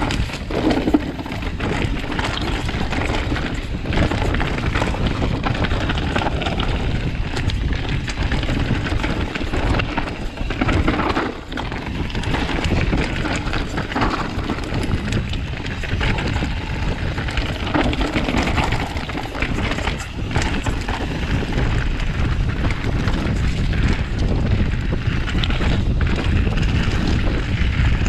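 Mountain bike riding down a rocky trail: wind buffeting the camera microphone in a steady low rumble, with tyres rolling over stones and the bike rattling in frequent short knocks.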